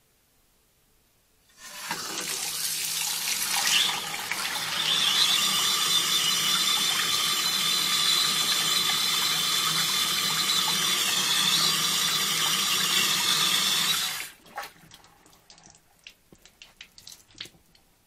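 Water running from a bathroom sink tap into a ceramic basin. It starts about a second and a half in, runs steadily for about twelve seconds, then is shut off, leaving a few drips and small clicks.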